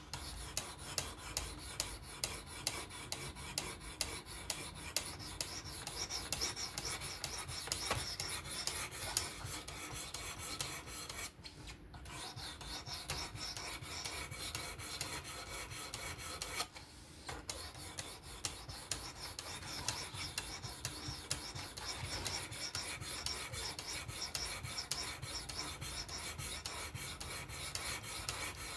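Knife edge scraping in quick back-and-forth strokes across a diamond sharpening plate on a fixed-angle sharpener, breaking off briefly twice.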